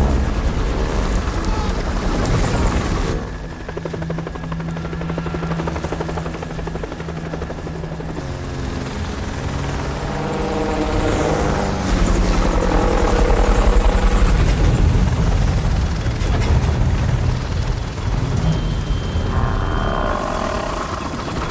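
Helicopter rotor and engine running steadily, growing louder about halfway through.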